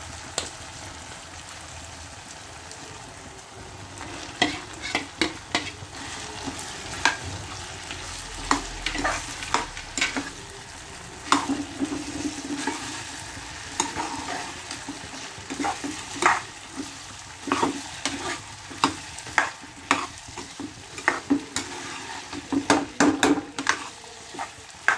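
Potatoes, peas and red carrots sizzling in oil in a kadhai, with a steel ladle stirring them. From about four seconds in, the ladle knocks and scrapes against the pan in many sharp clicks, thickest near the end.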